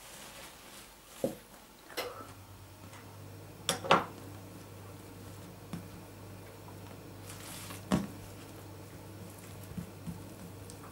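Kitchen handling sounds: a few sharp knocks and clinks on the countertop, the loudest about four seconds in, as a sheet of lamb caul fat is spread out by hand. A low steady hum comes in about two seconds in.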